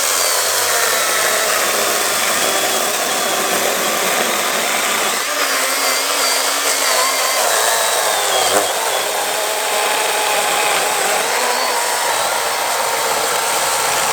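Milwaukee M18 Fuel cordless chainsaw's brushless motor and chain running continuously through an oak log. The motor whine wavers and dips slightly in pitch as the cut loads it.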